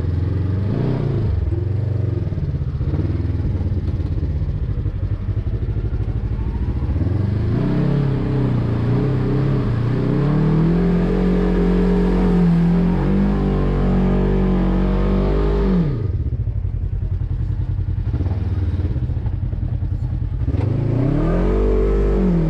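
Side-by-side buggy engine heard from the driver's seat while driving through a sandy pit: it revs up about seven seconds in and holds high revs, drops off suddenly about sixteen seconds in, then revs up again near the end.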